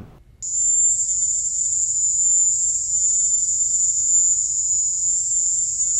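The high-pitched, cricket-like noise recorded by U.S. embassy workers in Havana during the attacks that investigators first blamed on a sonic weapon: a steady, very high tone that starts about half a second in. Its cause is unexplained.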